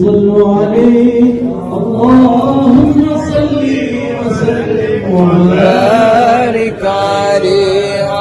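Arabic madih, a devotional praise song for the Prophet, chanted in the Hijazi style in long melismatic phrases whose pitch glides and wavers.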